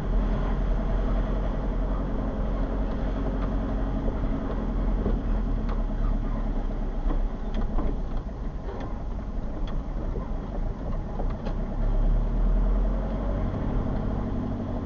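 A car driving along a street, heard from inside: steady engine and tyre noise with scattered light clicks and knocks.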